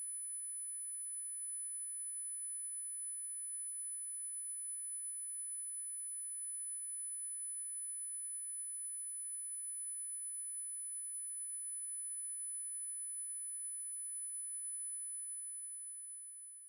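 A steady, quiet, high-pitched electronic tone with several fainter steady tones beneath it, fading out near the end.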